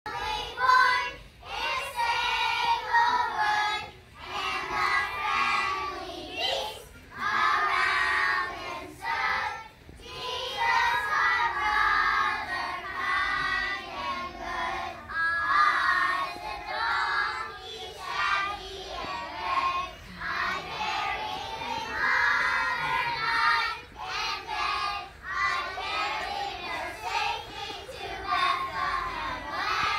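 A group of young children singing together in phrases, with short breaks between the lines every few seconds.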